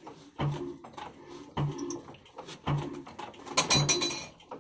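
Old Ruston Hornsby-type flywheel diesel engine being hand-cranked to start, turning over slowly with a low chuff about once a second. A brief high squeal comes near the end.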